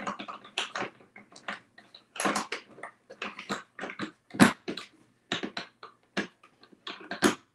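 Metal sockets clacking and rattling in a molded tool-set case as a tightly held 22 mm socket is tugged and worked at, in a run of short, sharp knocks, the loudest about four and a half seconds in.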